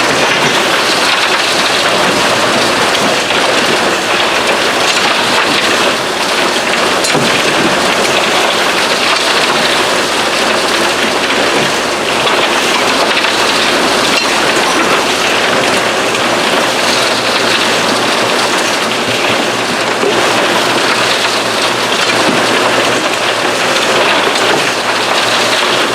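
Water spraying and rushing through a diamond recovery wash plant as gravelly clay is washed down its chute: a loud, steady hiss and splash of running water.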